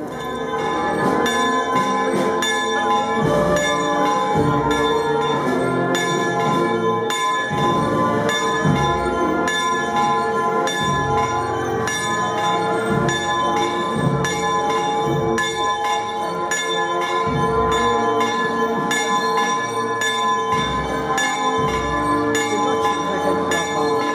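Church bells pealing: several bells struck over and over in quick succession, so their ringing overlaps into a continuous peal.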